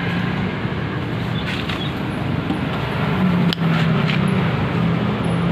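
Steady low motor hum over background noise, with a single sharp click about three and a half seconds in.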